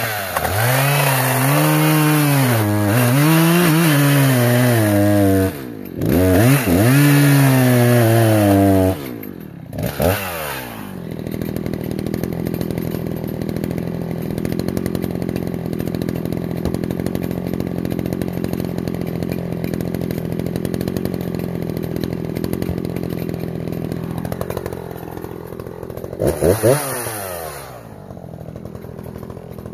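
Echo CS-590 Timber Wolf 59.8cc chainsaw at full throttle cutting live oak, its engine pitch sagging and recovering under load through two cuts with a short break between them. It then drops back to a steadier, quieter idle, with a quick blip of the throttle near the end.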